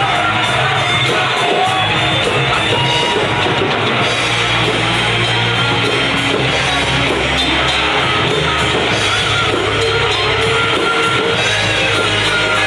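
A rock band playing live: electric guitars and bass over a drum kit, loud and dense, with steady drum hits throughout.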